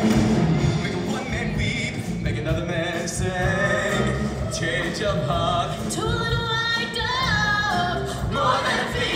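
High school show choir singing over instrumental backing, with several sustained notes held in the second half.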